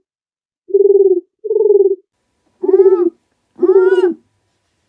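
Four short animal-like calls, each about half a second long and held at one low pitch; the last two rise and fall slightly.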